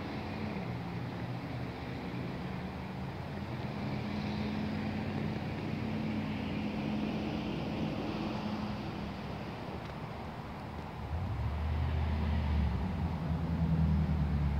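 A motor vehicle's engine running, a steady low hum that grows louder about eleven seconds in, over an even hiss of wind.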